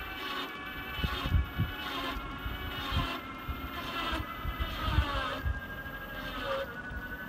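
Wheelchair trike rolling along a road: a steady whine of several tones from its drive, dipping in pitch about five seconds in, over a low rumble with frequent thumps of wind on the microphone.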